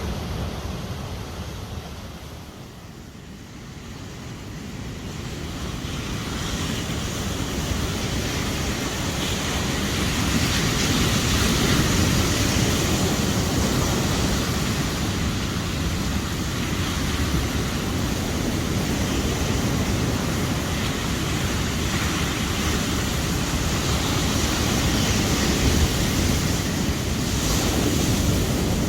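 Sea waves breaking and washing up a beach, dipping a few seconds in and then swelling back up to a steady surge, with wind rumbling on the microphone.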